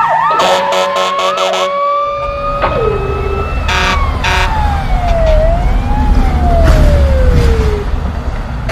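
Emergency-vehicle sirens wailing over a heavy low engine rumble, with several sharp knocks along the way. About halfway through, a siren tone slides slowly downward and winds down before the end.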